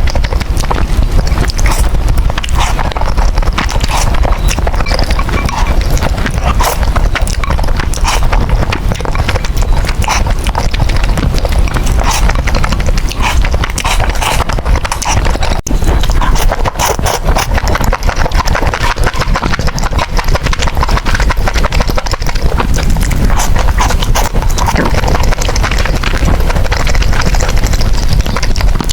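Close-miked eating of noodles: chewing with a dense, continuous run of wet mouth clicks and smacks.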